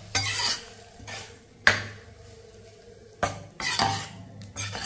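Stainless steel spoon stirring a thick sprouted green gram (moong) mixture in a stainless steel pan, scraping through it with two sharp metal-on-metal clinks against the pan.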